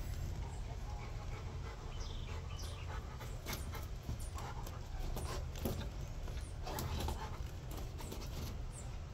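Pit bull-type dog panting and sniffing in short noisy breaths at irregular intervals, over a steady low rumble.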